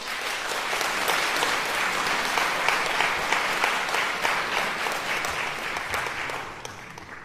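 Audience applauding: many hands clapping together, starting suddenly, holding steady and then dying away near the end.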